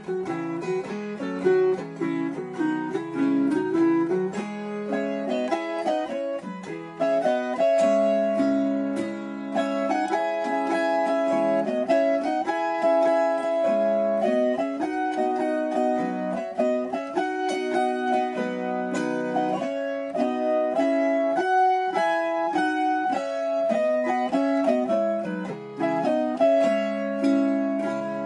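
Instrumental background music played on plucked string instruments, with a quick run of picked notes that keeps going without a break.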